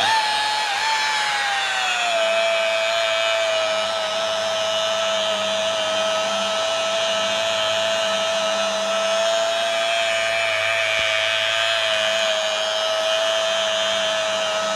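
Rotary car polisher running at low speed with a foam pad on the paint of a car bonnet, applying the final swirl-remover polish. Its whine starts right away, settles lower over the first two seconds and then holds steady. Low speed is deliberate, because a high speed would scratch the paint again.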